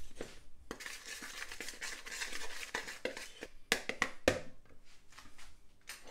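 A fork stirring and scraping dry spices and flour around a plastic mixing bowl: a fine, scratchy rasp, with a couple of sharper knocks against the bowl about four seconds in.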